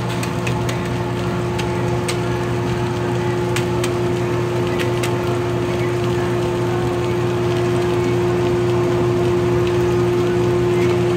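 Steady hum and hiss of a commercial kitchen griddle station. A handful of sharp cracks fall over the first few seconds as the thick shell of an ostrich egg is squeezed and broken by hand.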